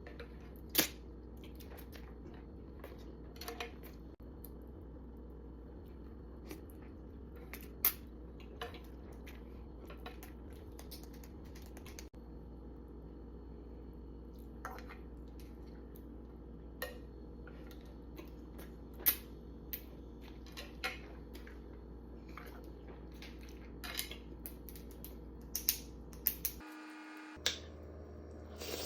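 Someone eating instant noodles: irregular sharp clicks of a utensil against the dish, with chewing, over a steady low hum. The clicks come every second or two and grow more frequent near the end.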